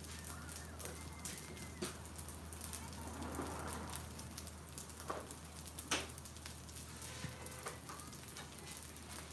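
Butter, garlic and rice sizzling on a hot Blackstone flat-top griddle, a steady crackle with frequent small pops.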